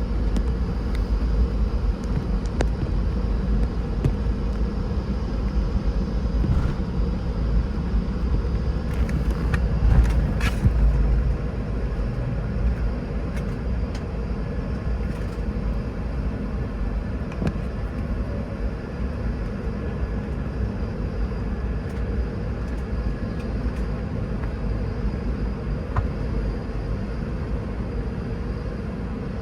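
Cabin noise in a Boeing 717 taxiing: a steady low rumble from the rear-mounted Rolls-Royce BR715 engines at taxi power and the rolling wheels, with a steady hum. It briefly grows louder, with a few rattles or clicks, about ten seconds in.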